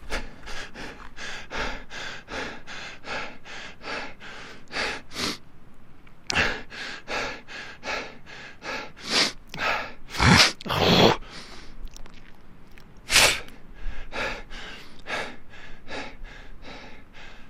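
A person panting hard from running, quick short breaths about two and a half a second. After a brief gap, a few louder, longer gasping breaths come about halfway through, before the quick panting starts again.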